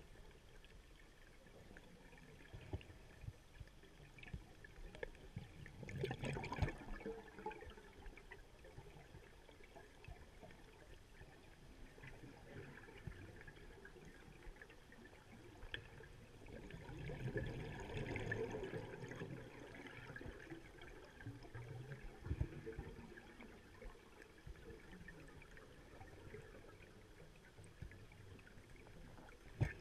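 Scuba diver's exhaled air bubbling out of the regulator, recorded underwater: two gurgling bursts about eleven seconds apart, with faint clicks and a low wash of water between them.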